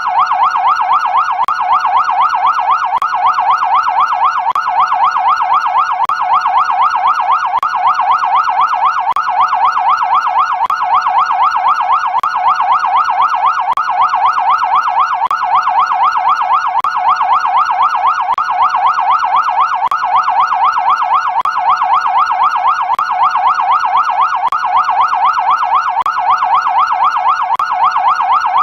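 Electronic police siren in a fast sweep, its pitch rising and falling several times a second, loud and unbroken.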